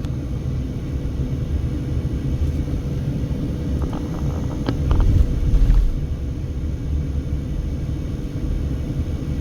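Car cabin noise while driving: a steady low road-and-engine rumble, swelling into a heavier low rumble for about a second around five seconds in.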